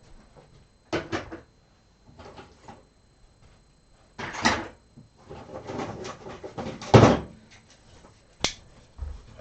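Irregular scuffs, scrapes and knocks of a radio and a knife being handled on a workbench. A longer scraping stretch comes a little over halfway through, and a sharp click near the end.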